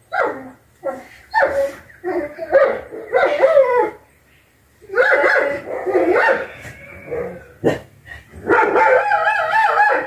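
An animal calling over and over: loud pitched cries that waver in pitch, in bursts of up to about a second, with a pause near the middle and one sharp knock a little before the end.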